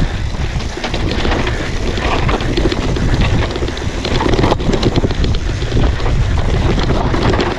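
Wind buffeting the microphone as a mountain bike descends a dirt trail at speed, with tyres on dirt and frequent short clicks and knocks as the bike rattles over the rough ground. There is a sharper knock about four and a half seconds in.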